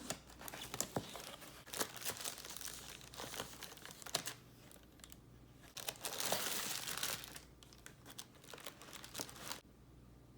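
Crinkling and rustling of material being handled, with scattered clicks, the longest and loudest rustle about six seconds in.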